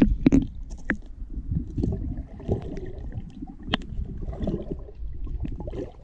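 Muffled underwater sound of the waterfall's pool picked up by a submerged camera: a low, uneven rumble of moving water with scattered sharp clicks and knocks, the loudest just after the start.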